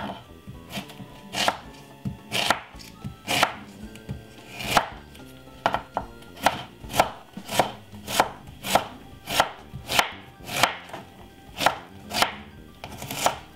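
Chef's knife chopping half a white onion on a wooden cutting board: a steady run of sharp knife strokes, roughly two a second.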